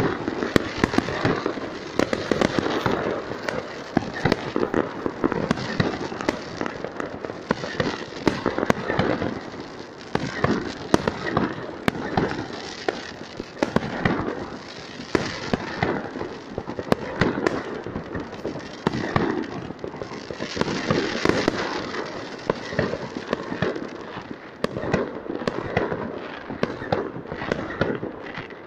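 Many New Year's fireworks going off at once: a dense, unbroken crackle of overlapping bangs and pops as aerial shells burst.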